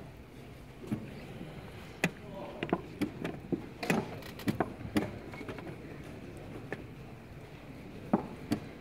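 Quick blitz-chess moves: wooden chess pieces knocked down on a wooden board and a digital chess clock's buttons slapped, a rapid run of sharp clicks and knocks that bunch together in the middle and come again twice near the end, over a steady hall murmur.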